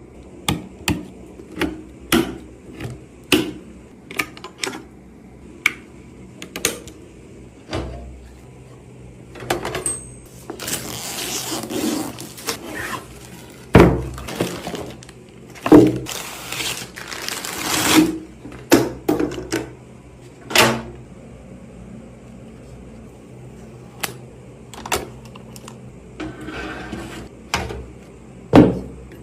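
Computer parts being handled and fitted together: a string of sharp clicks and knocks of plastic and metal, with a longer stretch of rustling and scraping in the middle broken by a few loud knocks.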